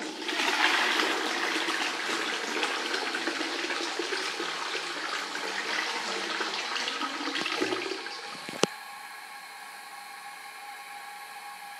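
Toilet flushing: water rushing into the bowl and swirling down the drain for about eight seconds. Then a single sharp click, and a quieter steady hiss with a faint hum.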